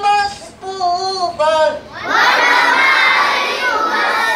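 Boys chanting Qur'an recitation in Arabic: a single voice chants a line for the first second and a half, then from about two seconds in a large group of boys recites together in loud unison.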